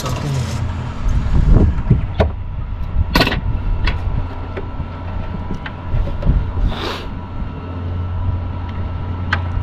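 Fishing boat's engine idling with a steady low hum. Scattered short knocks and taps sound over it, with two brief rushing bursts, about three and seven seconds in.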